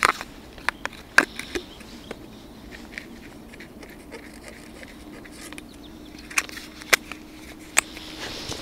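Rustling of a fleece jacket sleeve close to the microphone, with scattered sharp clicks and taps from handling, as a hand reaches into a bait box of maggots. A faint steady low hum comes in about halfway through.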